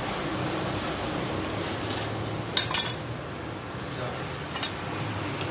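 A steel kitchen knife set down on a tiled floor: a short clatter of a few sharp clicks about two and a half seconds in, over a steady background hiss.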